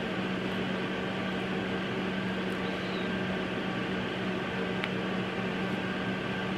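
Steady low machine hum over a fan-like hiss, typical of a kitchen appliance running, with a faint click about five seconds in.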